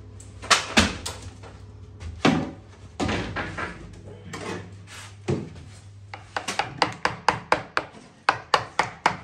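Wooden knocks and bangs as an old kitchen unit is wrenched and knocked loose. There are a few separate knocks at first, then a quick regular run of blows, about three a second, in the last three seconds.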